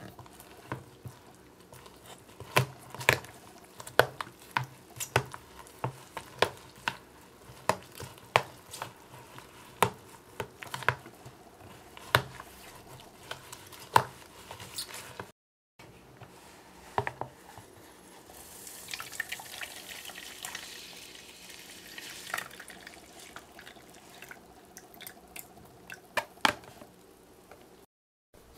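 Plastic spoon stirring a wet white powder in a plastic tub, knocking against the sides in sharp clicks about once or twice a second. After a short break, a softer hissing of mixing with a few more clicks.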